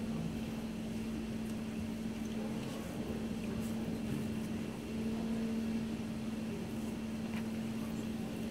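Steady machine hum holding one low, constant tone.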